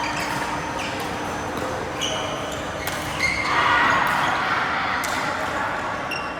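Badminton rally: rackets striking the shuttlecock about once a second, with short squeaks of shoes on the court floor.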